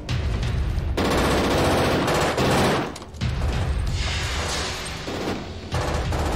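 Long bursts of rapid automatic gunfire, broken by brief pauses about three seconds and five and a half seconds in.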